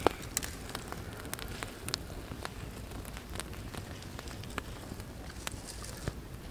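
Small wood fire crackling in the sand, with scattered sharp pops, the loudest right at the start.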